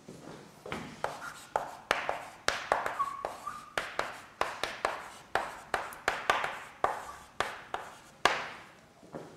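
Writing on a lecture board: a quick run of sharp taps and scratches, one for each stroke, with a brief squeak about three seconds in.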